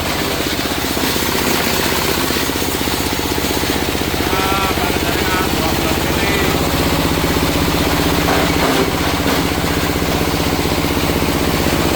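Coconut-husk grinding machine running steadily under power, with a fast, even pulse throughout.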